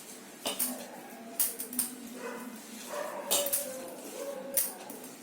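Hands mixing a crumbly semolina and flattened-rice vadai dough in a bowl: scattered clicks and scrapes, a handful of them sharper, over a faint whining tone.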